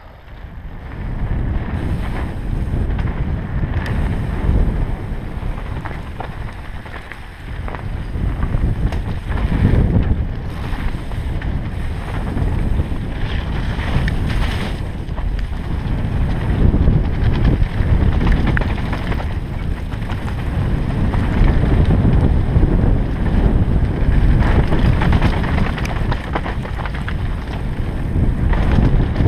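Wind rushing over an action camera's microphone on a fast mountain-bike descent, mixed with the rumble and rattle of tyres and bike over a loose gravel trail. The noise comes up suddenly about a second in as the bike gets going, and stays loud.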